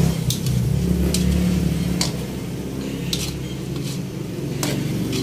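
A metal spoon scraping and clinking against a wok as squid simmering in its own liquid is stirred, with about five sharp clinks. Under it runs a steady low rumble.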